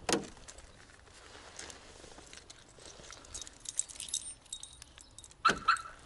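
A bunch of car keys jingling in the hand, with faint light tinkles, then a louder metallic clinking about five and a half seconds in as the key is brought to the driver's door lock of a VAZ 2106.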